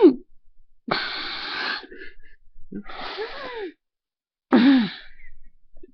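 A person in a coughing fit, wheezing and gagging: a long rasping breath about a second in, a second wheezing, gagging breath with a strained voiced note that rises and falls near the middle, and a loudest, cough-like voiced burst near the end.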